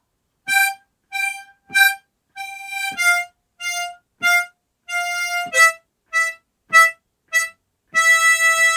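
A single diatonic harmonica plays a simple melody in separate, detached notes, alternating louder and softer. It plays four short notes on one pitch, then four a step lower, then five a step lower again, and the last one is held.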